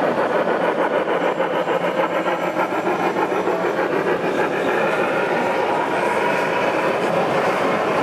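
Gauge one (1:32 scale) model freight train, hauled by a model steam locomotive, running past close by: a steady rumble of wheels on track with a quick, even pulsing.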